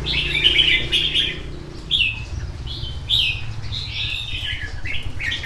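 Several red-whiskered bulbuls in an aviary chirping and calling in short bright phrases, over a low steady hum.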